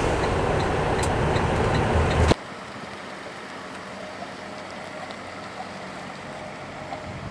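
Truck engine and road noise heard from inside the cab, with a light ticking about two or three times a second. About two seconds in it cuts off sharply to a much quieter, steady vehicle hum outdoors.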